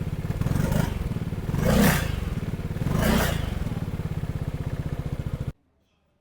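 Zontes 400G motorcycle on its stock exhaust idling with a steady pulse, blipped three times so the revs rise briefly and fall back; the sound cuts off suddenly about five and a half seconds in.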